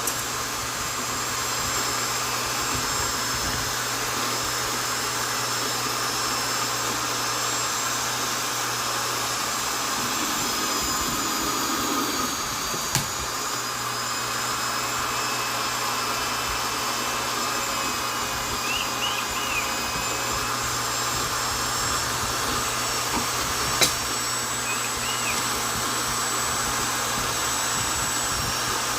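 Vonder electric drill running steadily at constant speed, a continuous motor whine and hum, with two sharp clicks, one about halfway through and one near the end.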